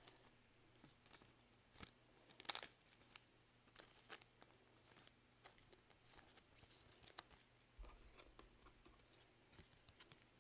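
Faint rustling and light clicks of a trading card and a rigid plastic top loader being handled in gloved hands, with one sharper click about two and a half seconds in.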